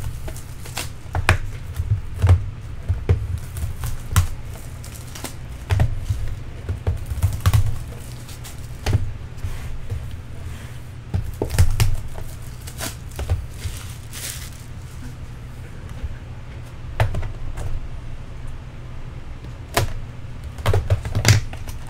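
Hands unwrapping and handling cardboard trading-card boxes: shrink wrap crinkling and tearing, and many irregular taps and knocks as boxes are set down, stacked and opened on a desk. A steady low hum runs underneath.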